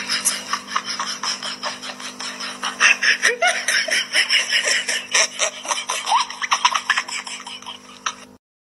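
People laughing in quick, breathy bursts over a steady low hum; it stops abruptly near the end.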